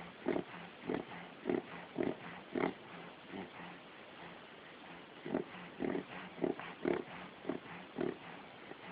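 A dog reverse sneezing: a run of quick, forceful inhalations through the nose, about two a second, with a pause of a couple of seconds near the middle before the run starts again.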